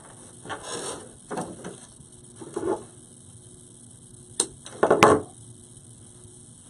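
Rustling and clicking of artificial flower stems being handled and pushed into a floral arrangement, in about five short bursts. The loudest burst, about five seconds in, comes with sharp clicks.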